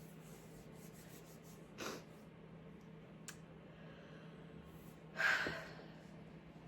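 A stifled sneeze about five seconds in: a short muffled burst with a little voice in it that trails off, the loudest sound here. A brief sharp breath comes about two seconds in.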